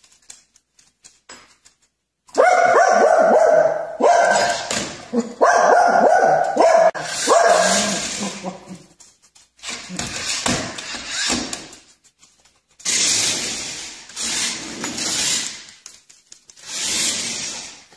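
A dog barking in long, rapid runs with short pauses between them, starting about two seconds in.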